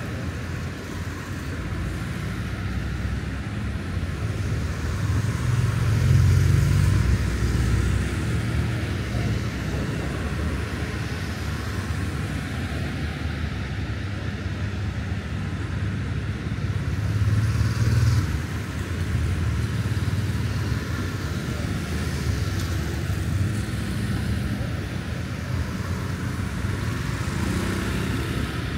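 City street traffic, with vehicles driving past in a steady low rumble. The rumble swells loudest about six seconds in and again around eighteen seconds, as vehicles pass close by.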